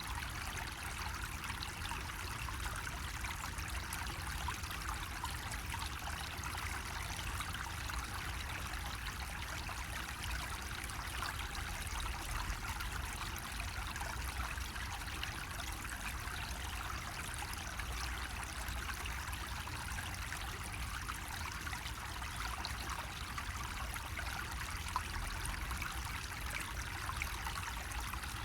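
Water running steadily from a bamboo spout, trickling and splashing without a break.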